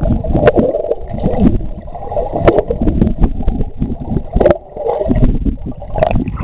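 A swimmer's strokes heard underwater: a muffled, irregular churning rumble of moving water and bubbles, with scattered sharp clicks.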